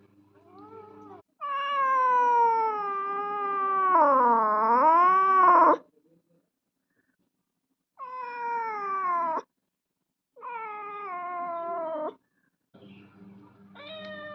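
A domestic cat yowling: one long, drawn-out call of about four seconds whose pitch dips and swings back up near its end, then three shorter calls that fall in pitch, with pauses between them.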